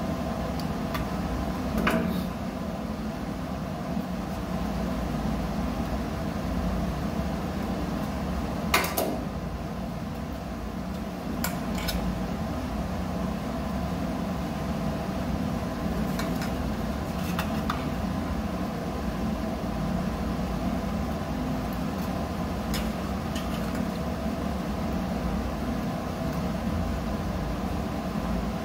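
A steady machine hum made up of several fixed tones, with scattered clicks and taps from pliers and fingers working wires into a small plastic junction box; the sharpest click comes about nine seconds in.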